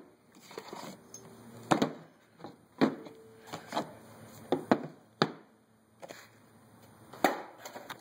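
Metal-backed rear brake pads for a BMW X3 being set down one after another on a hard surface: about six sharp clacks at irregular intervals, with handling rustle between them.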